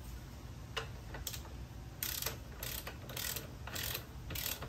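Ratchet wrench clicking in short back-and-forth strokes while tightening the axle holder nuts on a 1982 Honda Goldwing GL1100 front fork. A couple of strokes come first, then a steadier run of about one every half second from about two seconds in.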